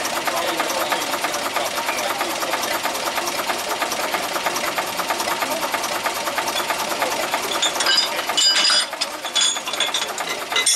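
Diesel engine of a narrow-gauge Motor Rail locomotive idling with a fast, even knock. About eight seconds in the steady running is broken by sharper, high-pitched noises.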